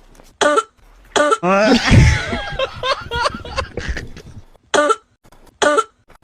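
A person coughing again and again in short, loud, throaty bursts, with a longer drawn-out voiced stretch about a second and a half in.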